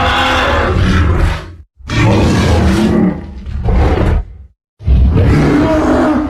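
Godzilla roar sound effects: three loud roars in quick succession, each with a deep rumble beneath. One carries over from just before, one comes about two seconds in, and the last starts near the end.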